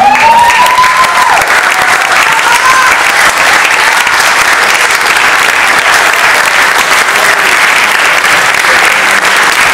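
Audience applauding loudly and steadily, with a cheer rising in pitch near the start.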